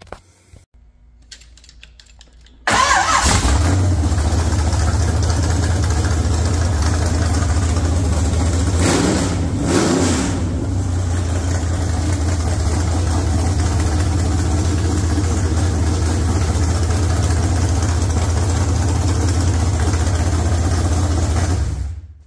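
406 cubic-inch small-block Chevy V8 with a hydraulic roller cam, on an engine run stand with open headers, comes in abruptly about three seconds in and runs steadily. It is revved briefly in the middle, settles back to a steady run, and cuts off just before the end.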